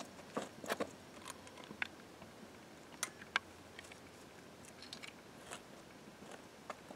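Faint scattered clicks and scuffs of footsteps on a gravel shore and of kayak stabilizer parts being picked up and handled, with two sharper clicks about three seconds in.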